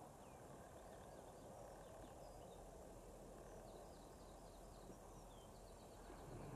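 Faint coastal ambience: a low, even background rush, with faint high bird chirps scattered throughout and quick runs of short repeated notes in the middle and again near the end.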